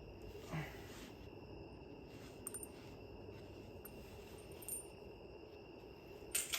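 Quiet hub work: a few faint, light metallic clicks of small hub parts being handled, over a steady faint high-pitched tone.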